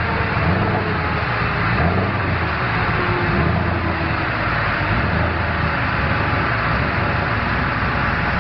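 Subaru Impreza's turbocharged flat-four engine running steadily at low revs on a rolling-road dyno, with no rev sweep. Under it is a steady rushing noise from the dyno's large cooling fan.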